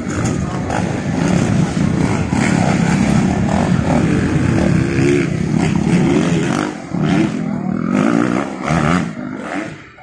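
Dirt bike engine revving up and down as the rider works through a trial course, fading near the end.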